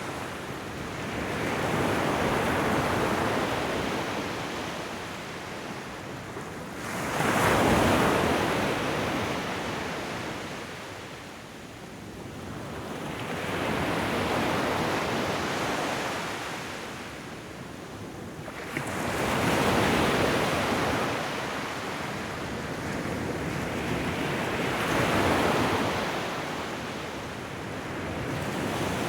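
Ocean surf breaking on a shore. The rush of each wave swells and fades about every five to six seconds, and two of the breaks, about 7 and 19 seconds in, come in suddenly and louder.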